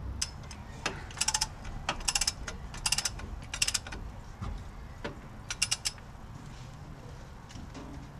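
Torque wrench ratcheting in several short bursts of rapid clicks, with pauses between them, while tightening wheel hub mounting bolts toward 150 ft-lb.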